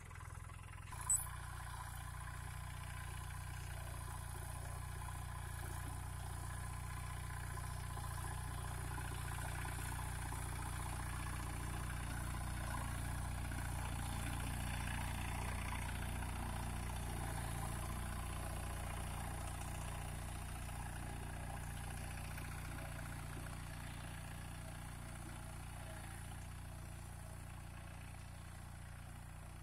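Captain 250 DI tractor's diesel engine running steadily as it pulls a cultivator through the soil, growing louder as the tractor comes near and fading as it moves away. A single sharp click about a second in.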